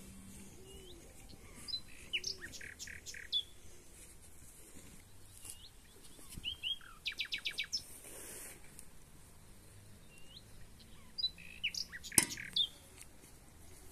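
Small songbirds chirping, with short scattered calls and a quick run of about six notes about seven seconds in. A sharp click just after twelve seconds is the loudest single sound.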